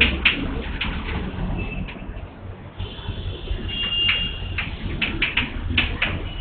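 Chalk writing on a blackboard: a run of quick taps and scrapes as each letter and number is stroked out, with a thin high squeal from the chalk about three seconds in.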